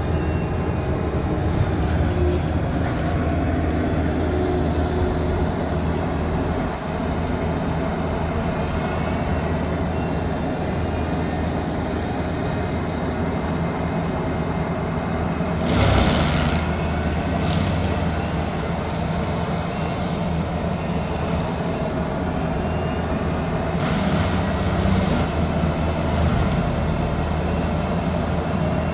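Land-clearing machine running steadily as its front grinding head chews through brush and small trees, with a louder crack about sixteen seconds in.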